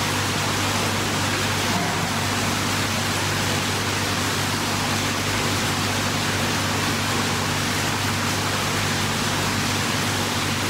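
Steady, even rushing noise with a constant low hum underneath: the background noise of an indoor swimming pool hall, its water circulation and ventilation running.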